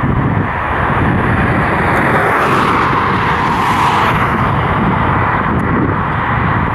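ET22 electric locomotive hauling a container freight train past at very low speed: a steady running noise that swells about two to four seconds in.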